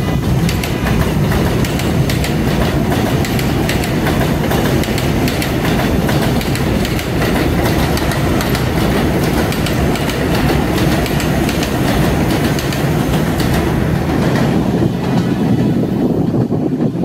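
R68 subway train running on the track, its wheels clacking steadily over rail joints; the higher rushing noise thins out near the end.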